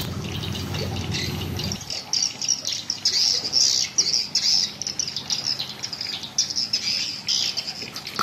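Small birds chirping and calling again and again in short high bursts. A low steady hum underneath cuts off about two seconds in.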